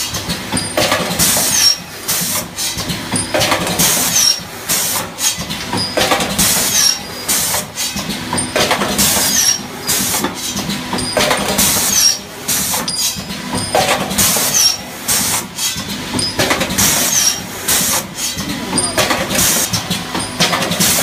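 Automatic aluminium hinge making machine running through its punching, chamfering and cutting cycle: sharp strokes and hisses repeating every second or so over a steady machine hum.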